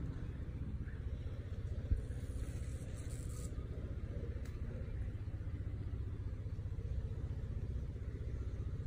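Steady low rumble, with a single sharp click about two seconds in.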